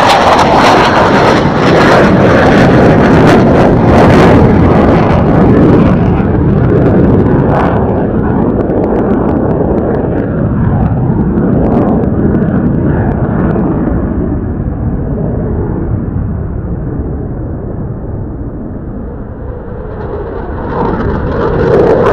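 Jet noise from a JASDF F-15 Eagle's twin Pratt & Whitney F100 turbofans climbing away after an afterburner takeoff. It starts loud and crackling, then fades and dulls over about twenty seconds as the jet departs. Near the end the next F-15 comes in loud again.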